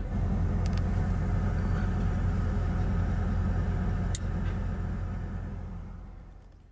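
A 1996 Ford F350's 7.3 L Powerstroke V8 turbodiesel idles as a steady low rumble, heard from inside the truck camper. A single click comes about four seconds in, and the sound fades away near the end.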